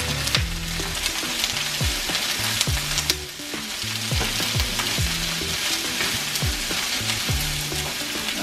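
Sliced bell peppers and onions sizzling in hot oil in a nonstick skillet while being tossed with tongs. Background music with a low, rhythmic bass line plays underneath.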